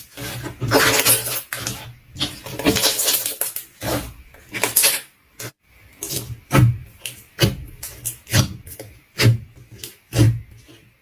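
Hands squeezing and pressing slime, making wet, sticky crackles and squishes. The first half is a busy run of crackling, then from about six seconds in come separate presses about once a second.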